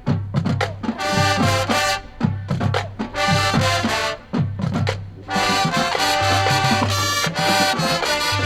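A marching band playing a brass-led, Latin-flavoured passage: full horn chords in punchy phrases over a steady low bass line, with short breaks between phrases.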